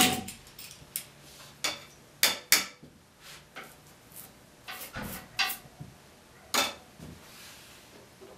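Irregular sharp clicks and knocks, about a dozen, with the loudest at the start and around two and a half and six and a half seconds in: wooden Windsor chair spindles and small hand tools being handled and knocked against the chair seat and the workbench.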